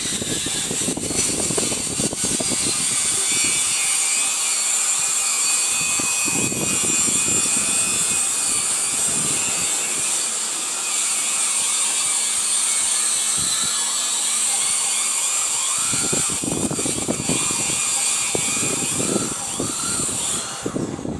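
Power tool grinding or cutting steel, a steady high-pitched whine and hiss that stops shortly before the end.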